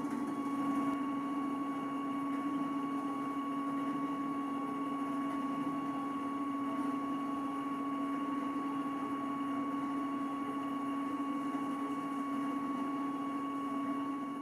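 Stepper motor of a 3D zoetrope sculpture running steadily as it turns the drum of 3D-printed figures: an even mechanical hum with a low steady tone, a higher whine above it, and a whir.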